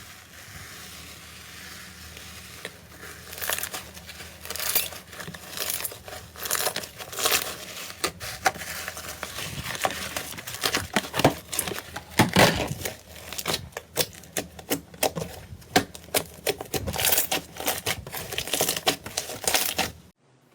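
Slime being squeezed and pressed by hand, giving a quick, uneven run of crackling clicks and pops. The clicks begin a few seconds in and stop abruptly near the end.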